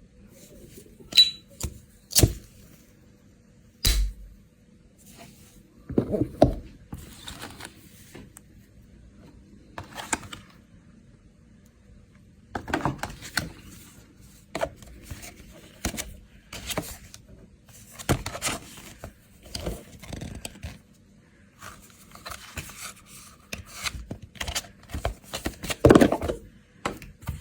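An S.T. Dupont lighter and its presentation box being handled in an unboxing: a run of irregular sharp clicks, knocks and short scrapes of hard box and metal parts, with the loudest knock near the end.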